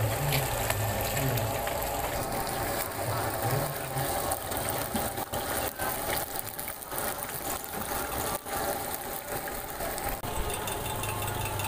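Hot oil sizzling as batter-coated fish and shrimp deep-fry in large steel woks, with short clinks of metal tongs against steel strainers. A low hum sits underneath at the start and again near the end.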